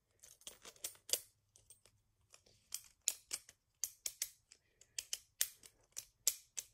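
Sharp plastic clicks of a Beyblade Burst World Spriggan being twisted by hand between its spin-direction and attack/defense settings, tight snapping detents. An irregular run of clicks, faint at first and quicker and louder from about three seconds in.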